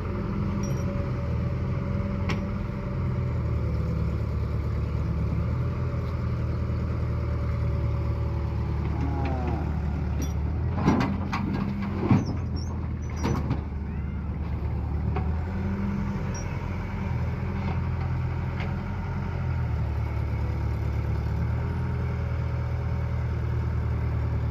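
Heavy diesel vehicle engine running steadily with a low drone, with a couple of short sharp sounds about eleven and twelve seconds in.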